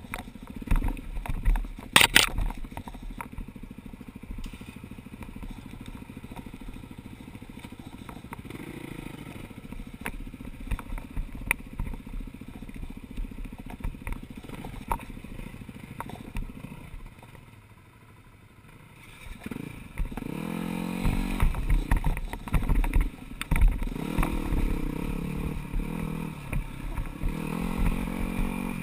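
Four-stroke single-cylinder dirt bike engine ridden on a rocky trail under changing throttle, with stones and chassis clattering. There is a sharp knock about two seconds in. The engine drops near idle around eighteen seconds, then revs up harder again.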